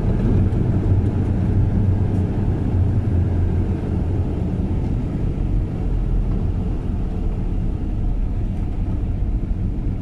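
Caterpillar wheel loader's diesel engine running steadily under load as it lifts large logs off a logging truck with its log fork.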